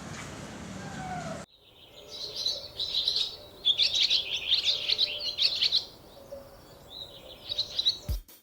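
Small birds twittering in quick, dense runs of high chirps, with a pause and a short final burst. Before that, a steady background din cuts off abruptly about a second and a half in.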